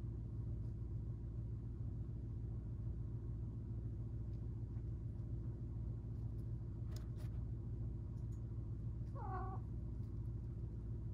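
A cat gives one short meow near the end, over a steady low hum. Two faint clicks come a couple of seconds before it.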